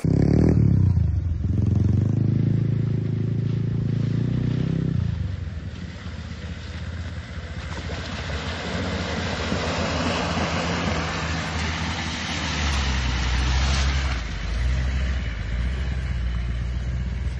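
Range Rover's engine driving through deep mud and puddles. The engine note drops in the first second and holds steady for a few seconds. It then gives way to a loud hiss and spray of tyres churning through mud and water, with a low engine rumble returning near the end.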